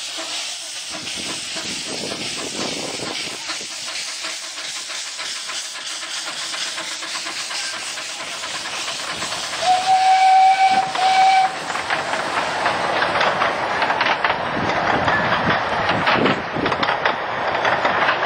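Miniature steam locomotive pulling away with its train: steam hissing from the open cylinder drain cocks and the exhaust chuffing. Two short whistle blasts come about halfway through, and the chuffing is louder after them.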